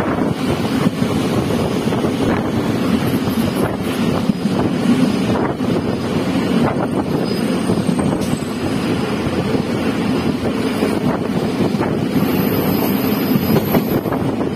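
Passenger train running at speed, heard from an open coach doorway: a steady low rumble of the moving train with wind buffeting the microphone in irregular gusts.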